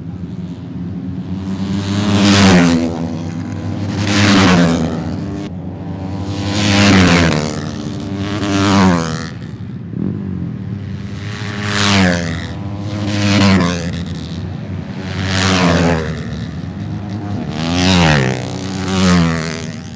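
250 and 450 class ice-racing motorcycles passing close by one after another, about nine times. Each engine's pitch drops as it goes past.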